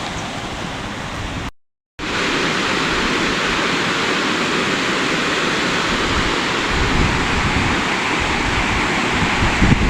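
Steady rush of flowing river water. It cuts out for about half a second about one and a half seconds in, then comes back slightly louder and just as steady.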